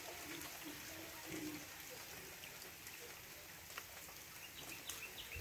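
Light rain falling, a soft even patter with scattered drip ticks. Near the end a run of short, evenly spaced high chirps begins.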